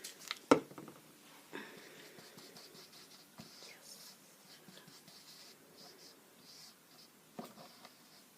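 Faint scratchy rubbing of a paintbrush working acrylic paint on a palette, with a sharp knock about half a second in and a few light taps near the end.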